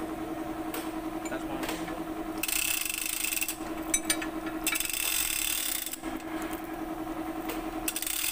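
A steady machine hum, with two bursts of hissing lasting about a second each and a few light clicks between them.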